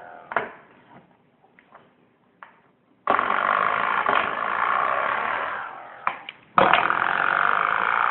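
A young child making a funny throaty noise with her voice, twice. Each time it starts suddenly and is held for about three seconds, with a few faint clicks in the quiet before the first.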